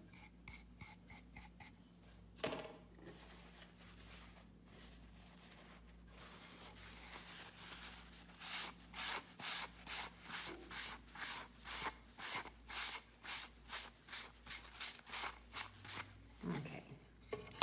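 Rubbing strokes over a painted wooden sample board as liming wax is worked in: faint at first, then about halfway through a regular run of short strokes at roughly two a second.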